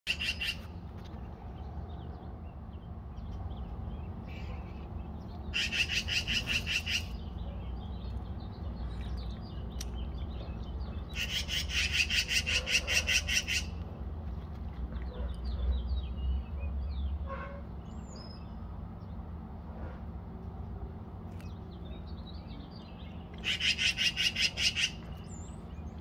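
Magpie giving its harsh, rapid rattling chatter in four bursts of one to two seconds each: the alarm scolding of a magpie mobbing a cat. Faint chirps come between the bursts over a low background rumble.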